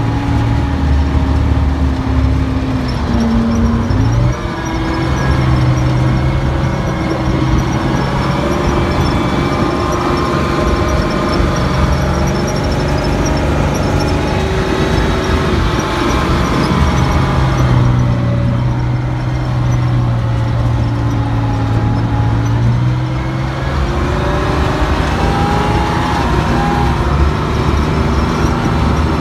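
Engine of a military armoured vehicle running under way, heard from on top of the vehicle, with a steady rumble whose pitch steps up sharply about four seconds in and shifts again later as it changes speed.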